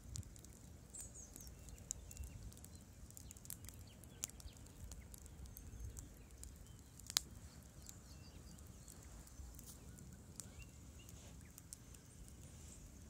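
Wood campfire crackling quietly: irregular sharp pops and snaps, with one louder snap about seven seconds in.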